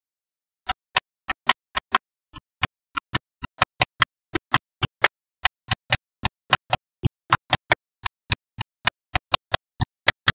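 Small magnetic balls clicking sharply as they are pressed and snapped onto a magnet-ball structure: a quick, slightly irregular run of about four clicks a second, with silence between them.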